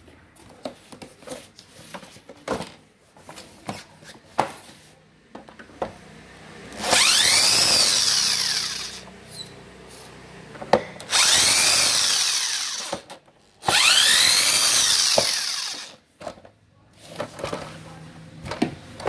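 Power drill-driver backing the screws out of an induction cooker's plastic base plate, in three runs of a couple of seconds each. In each run the motor's whine rises and then falls. Between the runs come clicks and knocks from the plastic casing being handled.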